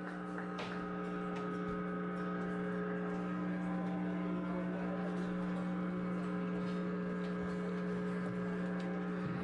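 Steady electric hum from the band's stage amplifiers: one low, even tone with overtones that holds without a break, getting slightly louder over the first second.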